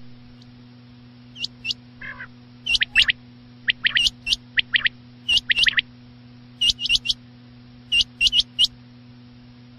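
Recorded quail calls used as a hunting lure: short, sharp whistled notes in quick clusters of two or three, repeated every second or so, with an occasional lower buzzy note. A steady low electrical hum runs underneath.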